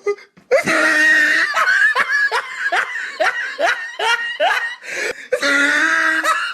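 Laughter: a drawn-out laugh, then a string of short, falling 'ha' pulses about three a second, ending in another drawn-out laugh.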